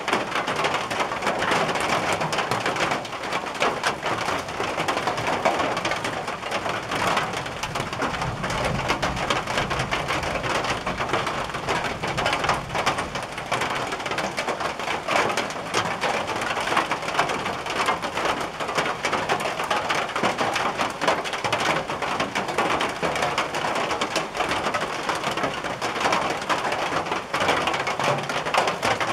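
Rain drumming steadily on a tin roof: a dense, even patter of countless drops on the metal.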